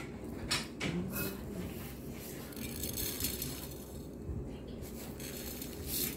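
Nonpareil sprinkles shaken from a shaker jar, rattling in the jar and pattering onto pancakes on a ceramic plate, with a few light clicks and clinks of the jar and dishes.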